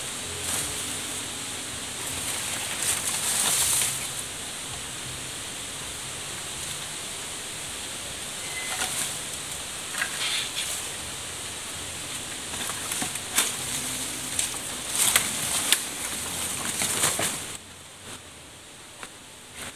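Dry leaves and bamboo stalks rustling and crackling in bursts as they are handled in the undergrowth, over a steady high hiss that drops away near the end.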